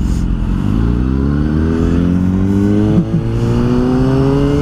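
Kawasaki Ninja ZX-6R inline-four engine pulling away from a stop, its pitch rising steadily as the bike accelerates, with a brief dip in loudness about three seconds in.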